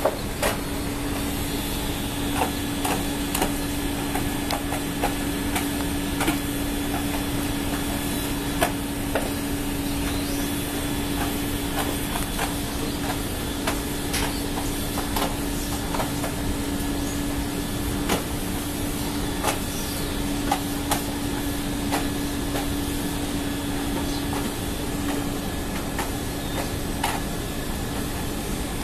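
Steady machinery noise with a constant low hum, broken by frequent irregular clicks and knocks.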